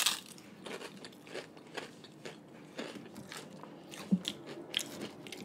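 A crunchy bite into a crisp fried wonton chip topped with poke, the loudest crack right at the start, followed by crunchy chewing: a string of smaller, irregular crunches.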